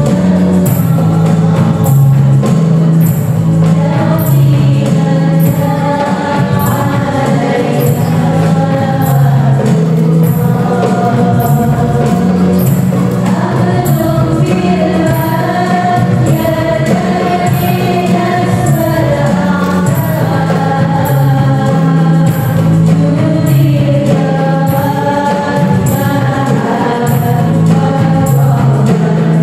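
Sholawat, an Islamic devotional song, sung by voices over keyboard accompaniment with a steady percussion beat.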